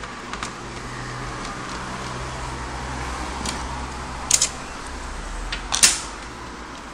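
A screwdriver working the screw out of a PS3 Slim's optical drive, giving a few sharp metallic clicks and taps in the second half, over a steady low background hum.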